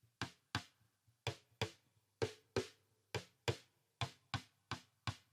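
Cross-stick on a snare drum, played with the thick butt end of a reversed drumstick across the rim: about a dozen sharp clicks in pairs, repeated evenly. Played this way the cross-stick sounds more pleasant and more defined.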